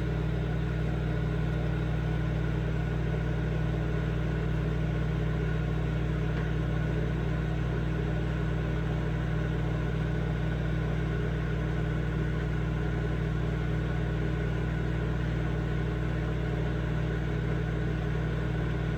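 Microwave oven running: a steady low electrical hum that holds unchanged throughout.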